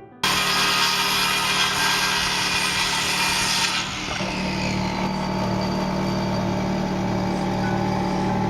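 A small engine running steadily at a constant pitch, cutting in abruptly; its high hiss thins out about four seconds in while the engine note carries on.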